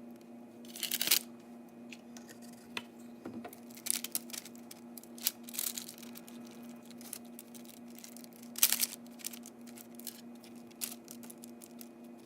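Short rustling and scraping noises from hands working over chicken wings on a baking sheet as oil is added, over a steady low hum.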